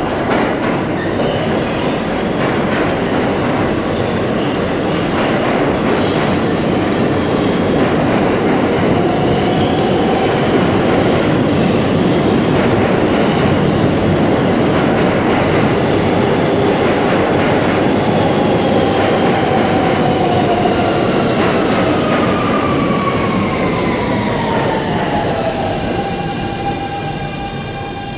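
An R160 New York subway train pulling into an underground station, with a loud, steady rumble and rattle of wheels on the rails. From about two-thirds of the way in, several whining tones fall in pitch as the train slows, and it eases down almost to a stop near the end.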